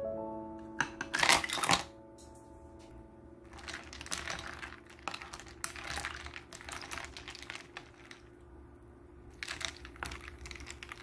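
Ice cubes clattering and clinking in a bowl of chilled broth as it is stirred with chopsticks, in irregular bursts that are loudest about a second in. Soft background music plays throughout.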